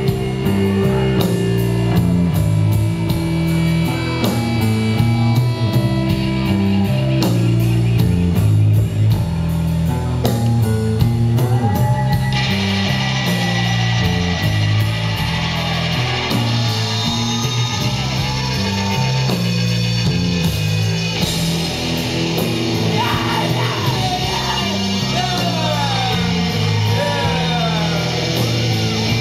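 Live rock band playing loud through a large venue's PA, heard from the audience: electric guitar, bass and drums with a singer's vocals. The sound grows brighter and fuller about twelve seconds in.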